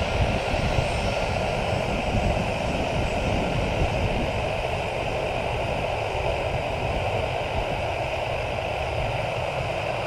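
Boeing 737-900ER's twin CFM56 jet engines running at taxi power as the airliner rolls slowly past: a steady rushing whine over a low rumble, easing off slightly as it moves on.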